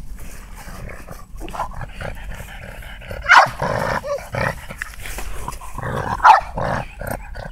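Dog barking and growling, with the loudest barks about three seconds in and again just past six seconds.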